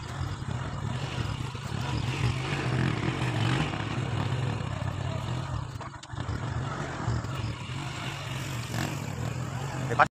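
Small single-cylinder motorcycle engine running steadily as it rides along a dirt track, with a short dip about six seconds in; the sound cuts off with a click at the end.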